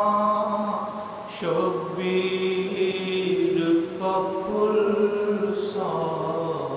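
A man's voice chanting a recitation in drawn-out, held notes, with short breaks between phrases.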